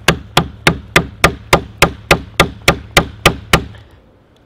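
A wooden stick baton rapidly striking the spine of an Adventure Sworn Scandi-grind bushcraft knife, driving the blade into the trunk of a dead maple: a fast, even run of sharp knocks, about three and a half a second, that stops about three and a half seconds in.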